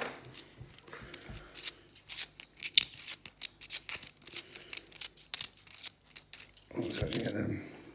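A stack of cupro-nickel UK 50p coins clicking and clinking against each other as they are thumbed through one by one in the palm: a quick, uneven run of small sharp clicks, with one louder clink near the end.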